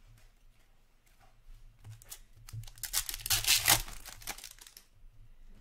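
A crinkly wrapper being torn and crumpled, a noisy burst lasting about two seconds midway, with light clicks of cards being handled around it.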